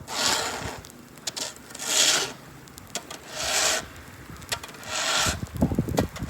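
Four rasping scrapes, each about half a second long and roughly one and a half seconds apart.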